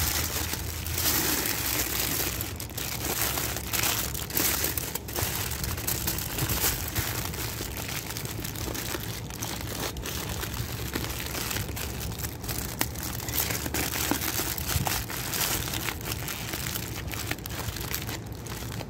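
Busy crinkling and rustling handling noise from a plastic hummus tub and a metal spoon scraping hummus into a bowl, with many small scrapes and clicks.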